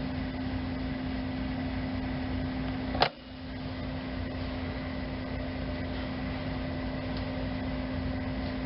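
Steady electrical hum of a color-changing fiber optic lamp's base, where a small motor turns the color wheel, with a single click about three seconds in.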